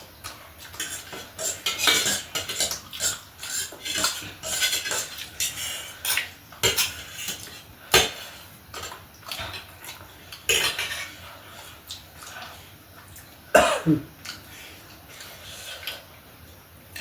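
Cutlery clicking and scraping against a plate at irregular intervals while someone eats, with one short falling vocal sound, like a cough or grunt, in the later part.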